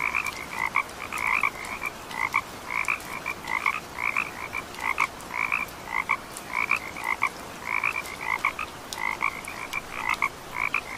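A chorus of frogs calling: short notes repeated several times a second at two pitches, a lower and a higher, overlapping without pause.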